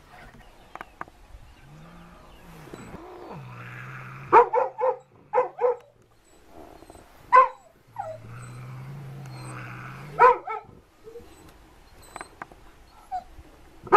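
A dog barking: a quick run of four barks about four seconds in, a single bark about three seconds later, and another bark or two around ten seconds in.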